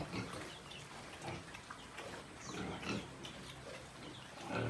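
A farrowing sow and her newborn piglet grunting softly in short, irregular grunts.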